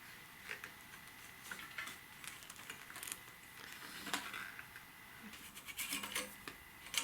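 Scattered light clicks, scrapes and rattles of hands and tools working loose motorcycle handlebar hardware, busier in the last couple of seconds, with a faint steady high tone underneath.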